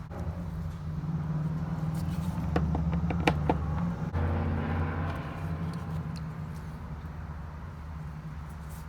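A steady low hum that swells through the middle, with a cluster of sharp clicks between two and a half and three and a half seconds in, while screws are being taken out of the base of a plastic vacuum cleaner.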